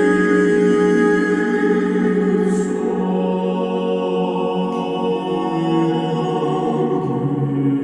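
Slow ambient music with sustained choir-like voices holding long chords.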